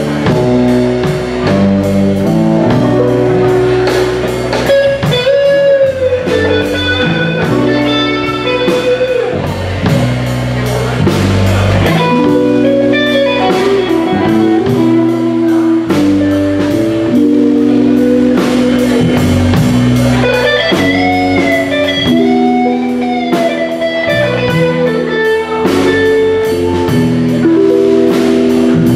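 Blues band playing live: guitar with bent notes over a drum kit keeping a steady beat.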